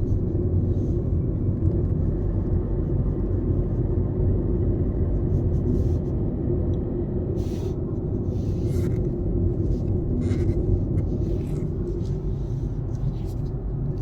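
Steady low road and engine rumble inside a Tata Altroz's cabin, cruising at about 60 km/h off the accelerator, with no rattle from the left side: the rattle has been cured.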